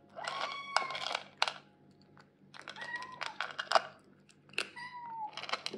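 Kitten crunching dry kibble from a plastic bowl in quick, clicky bites, and giving three short meows: one at the start, one about three seconds in and one near the end.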